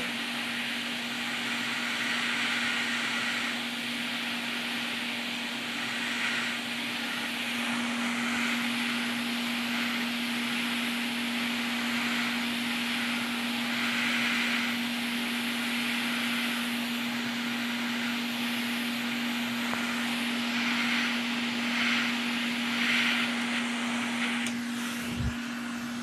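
Hot air rework station blowing on a PS5's HDMI port to melt its solder for removal: a steady rush of air with a constant low fan hum, stopping at the very end as the port comes off.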